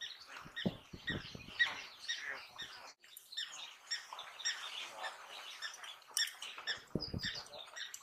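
African wild dogs giving their high-pitched twittering chirps over and over while they tug at a kill, with a couple of low thuds about a second in and near the end.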